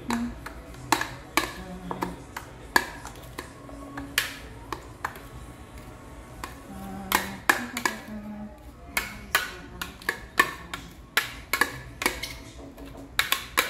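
A spoon scraping and knocking inside a plastic food processor bowl as chopped chimichurri mix is scraped out, giving irregular sharp clicks and taps, some loud.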